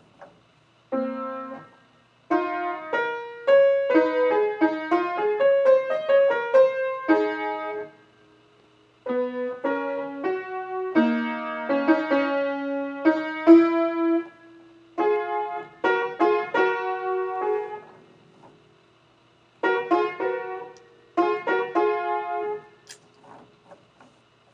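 A melody played by hand on a keyboard with a piano sound: single notes and small chords in phrases of a few seconds, with short breaks between them.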